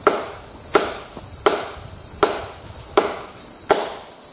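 A stone striking a tree trunk again and again: six sharp knocks, evenly spaced about three-quarters of a second apart. The knocking is done to disturb palm civets hiding in the tree and flush them out.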